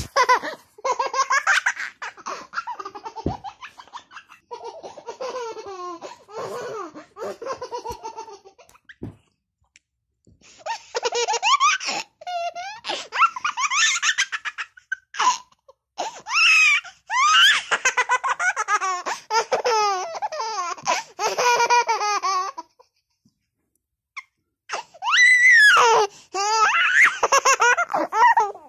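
High-pitched laughter in three long bouts, separated by short pauses of a second or two.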